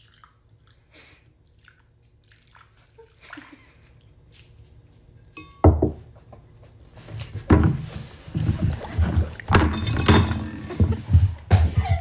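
A sudden loud thump about five and a half seconds in, after faint scattered clicks, followed by several seconds of loud, dense knocking and clattering.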